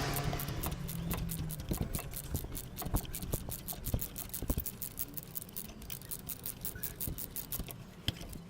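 Socket ratchet clicking in a fast, even run, with scattered knocks, as spark plugs are loosened; the audio is sped up four times.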